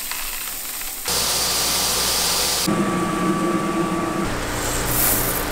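Green coffee beans poured from a scoop into a plastic tub with a rattling hiss, then the steady whirring hum of a coffee roaster's machinery as its cooling tray stirs freshly roasted beans. The sound changes abruptly a few times.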